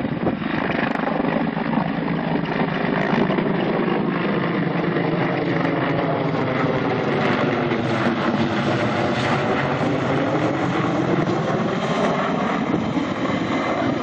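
A large military helicopter flying past low overhead, its main rotor and engines making a steady, continuous drone.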